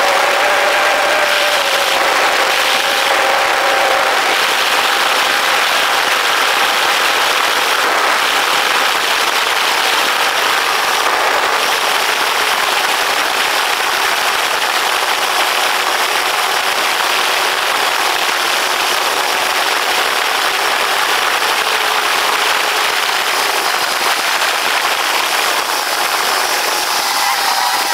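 Quadcopter drone's electric motors and propellers, heard from its on-board camera: a steady whirring hiss with a faint whine whose pitch shifts now and then as the motors change speed.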